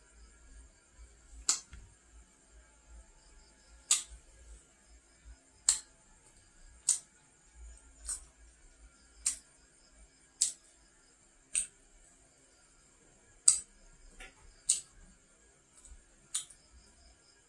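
Crisp eating sounds from fried pastry being bitten, chewed and pulled apart: a sharp click or crunch about once a second, sometimes two close together, over a faint steady hiss.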